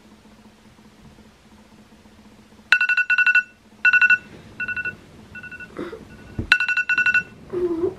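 Smartphone alarm beeping: quick runs of high electronic beeps in repeated clusters, growing softer and then loud again. A single thump comes about six and a half seconds in, and a short low vocal sound near the end.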